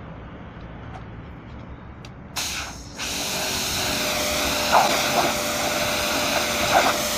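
Kärcher pressure washer's water jet blasting a rag laid on paving stones, to wash it. A short burst of hiss comes about two and a half seconds in, then from about three seconds a loud, steady hiss with a steady tone under it.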